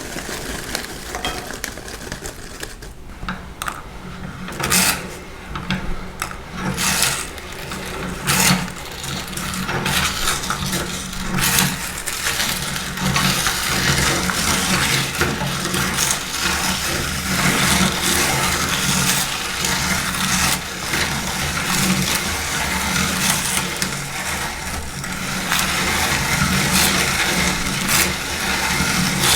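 Electric meat grinder running with a steady motor hum, with irregular crunching and crackling as dry, brittle food is crushed through it; the crunching becomes denser about a third of the way in.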